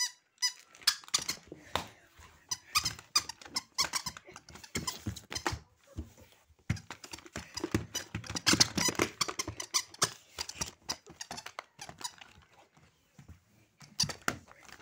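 Husky-shaped plush toy squeaking again and again, in quick irregular bursts, as it is handled and pushed about, with a break about six seconds in.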